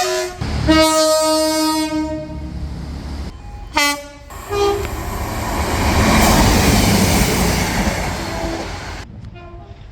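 British train horn sounding: a brief high note, then a longer low note lasting about a second and a half, and another short blast about four seconds in. The train then passes, its rumble rising to a peak and fading away.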